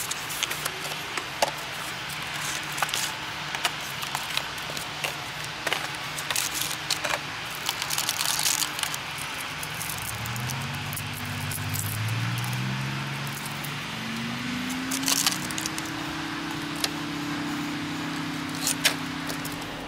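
Crackling and clicking of a cardboard box and clear plastic packaging tray being handled as a model locomotive is unpacked. About halfway through, soft background music with long held notes comes in, its notes stepping upward.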